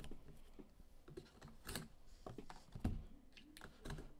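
Yellow utility knife scraping and clicking in short, scratchy strokes as it cuts into the sealed top of a cardboard box, the blade dull enough that it might need replacing.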